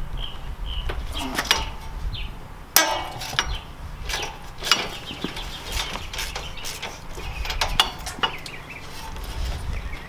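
Metal clinks and knocks of hand tools on the front strut's lower mounting bolts, irregular, with one sharper knock about three seconds in.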